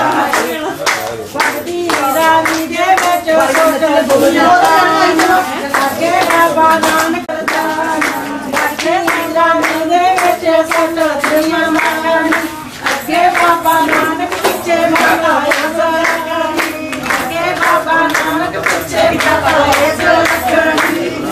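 A group of women singing Punjabi boliyan for giddha in a loud chorus, keeping time with steady rhythmic hand-clapping.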